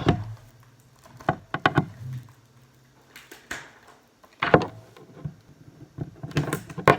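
Plastic shrink wrap on a Blu-ray case being picked and pulled at: irregular bursts of crinkling and clicks of the plastic case being handled, every second or so with short pauses between.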